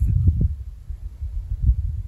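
Wind buffeting the microphone: a low, steady rumble with a few dull thumps, a cluster about a quarter second in and one more near the end.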